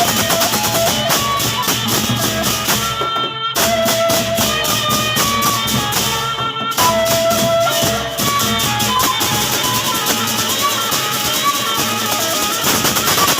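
Gendang beleq ensemble playing a tabuh: drums with fast, dense cymbal strokes under a held melody line, with two very short breaks about three and six and a half seconds in.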